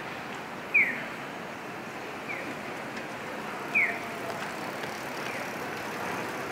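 Audible pedestrian crossing signal chirping: a short falling 'piyo' tone repeated about every one and a half seconds, alternately louder and fainter as the speakers on each side of the crossing answer each other. Behind it is a steady hum of street traffic.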